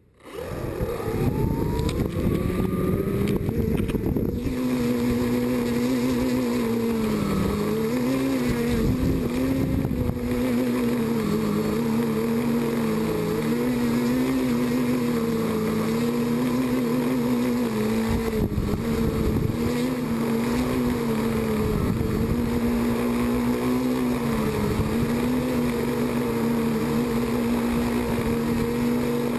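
Quadcopter's electric motors and propellers spinning up about half a second in, the pitch rising over the first few seconds, then running with a loud buzzing whine whose pitch wavers up and down constantly, heard up close from a GoPro mounted on the quad.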